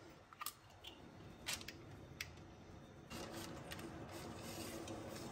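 A few faint clicks and scrapes of a metal ice-cream scoop working Nutella out of the jar, with the click of its squeeze-release lever. A faint steady hum comes in about three seconds in.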